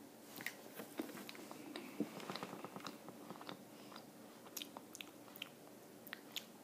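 Close-up chewing of a BeanBoozled jelly bean: faint, irregular sticky mouth clicks. They are busiest over the first few seconds and thin out towards the end.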